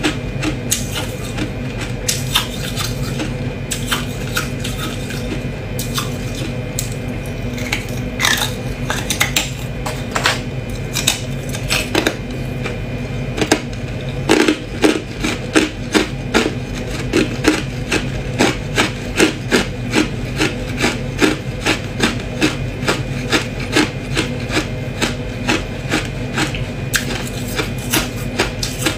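Hard ice being bitten and chewed, a run of sharp, crisp crunches. From about halfway through the crunches come steadily at roughly two a second and are louder. A steady low hum runs underneath.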